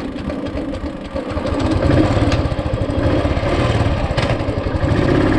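Royal Enfield Thunderbird's single-cylinder engine running as the motorcycle rides along the road, getting louder about two seconds in.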